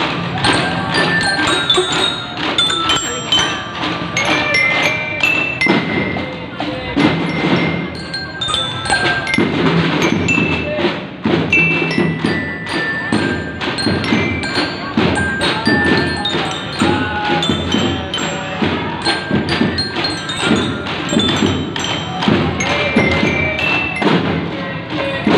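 Children's drum band playing: glockenspiels struck with mallets ring out a simple stepping melody over small snare drums beaten in a steady rhythm.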